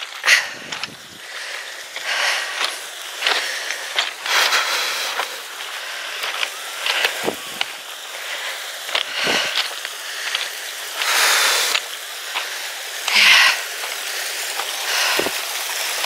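Footsteps crunching and clattering irregularly over beach pebbles, with a small waterfall trickling down the rock face.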